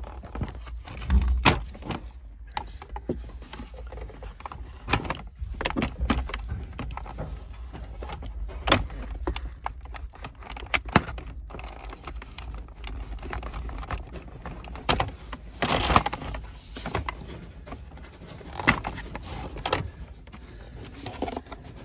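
Irregular plastic clicks, knocks and rattles of wiring connectors being unplugged and dashboard console trim being worked loose, with a short scraping stretch partway through.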